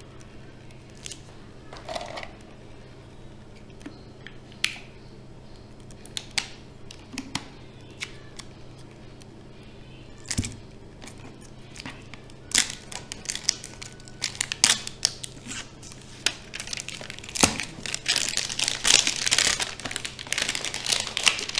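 Scissors cutting the thin plastic film label of a plastic detergent bottle, and the label crinkling as it is cut and peeled away. Scattered snips and handling clicks at first, building in the second half to dense crinkling.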